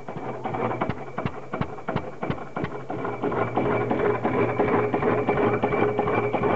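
Single-cylinder vintage stationary engine running steadily, firing at about four beats a second. Background music fades in about halfway.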